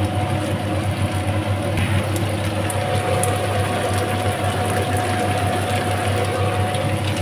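A steady low mechanical hum with a faint high whine held through most of it. Over it are light, sparse crackles from chicken simmering in sauce in a frying pan.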